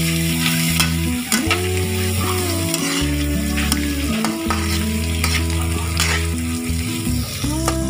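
Sliced onion, carrot and bell pepper sizzling in a hot pan as they are stirred, with scattered scrapes and clicks of the utensil. Background music with held chords that change every second or so plays underneath.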